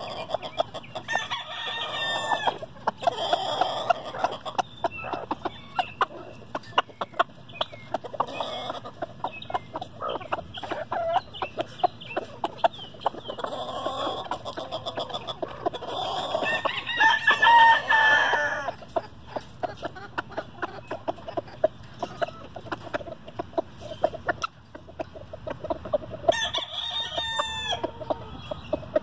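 Chickens clucking throughout, with short high calls now and then. A rooster crows once, loudly, about two-thirds of the way through.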